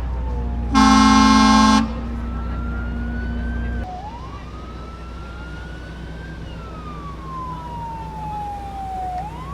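A siren wailing in slow rising and falling sweeps. A loud horn blast of about a second sounds near the start, over a low engine rumble that drops away about four seconds in.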